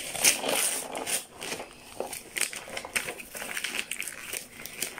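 Gift-wrapping paper being torn and crumpled by hand as a present is unwrapped: irregular rustling and ripping, busiest in the first second.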